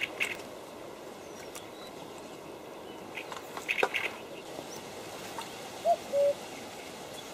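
Reed-bed ambience: a steady hiss with scattered short bird chirps and a cluster of quick clicks about four seconds in. Near the end a two-note call sounds: a short rising-and-falling note, then a level one.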